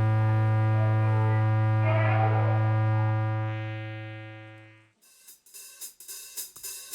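Background music: a sustained chord with a strong low note fades out over the first five seconds, then a drum beat with hi-hat strikes starts.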